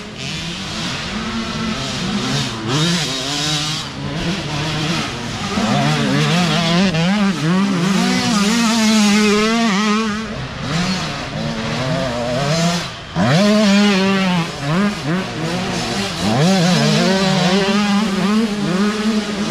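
Dirt bike engines revving hard as youth riders race past, the pitch climbing and dropping with throttle and gear changes. More than one engine is often heard at once. There is a brief dip about two-thirds of the way through, then a sharp rev back up.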